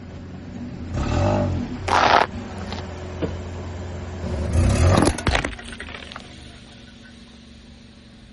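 A car's engine runs low and steady while a tyre crushes a pile of dry elbow macaroni, giving several loud crunching, crackling bursts, the biggest and most clicky about five seconds in.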